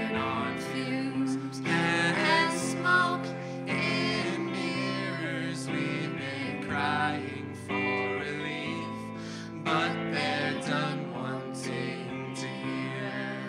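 A song performed live: an electric guitar played under a woman's singing voice.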